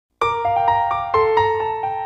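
Intro music starting a moment in: a keyboard with a piano-like sound plays a light melody of quick notes over held lower notes, with a soft low pulse underneath.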